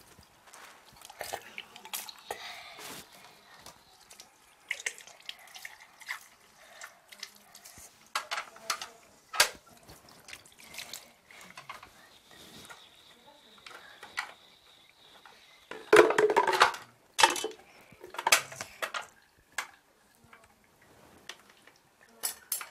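Dishes and cutlery clinking and knocking, with water splashing and dripping as at a sink; one louder clatter lasts about a second, some sixteen seconds in.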